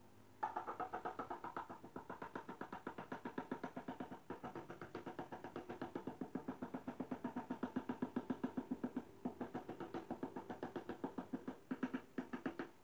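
Hammer tapping rapidly on ceramic floor tiles, about eight or nine light strikes a second, with two short pauses.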